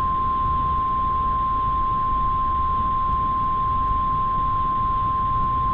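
NOAA Weather Radio 1050 Hz warning alarm tone: one steady, unbroken high tone over a constant background hiss, the alert signal that comes before a warning message, here a tornado warning.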